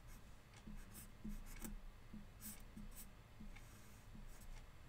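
Dry-erase marker drawing on a whiteboard: a string of short, faint strokes, about two a second.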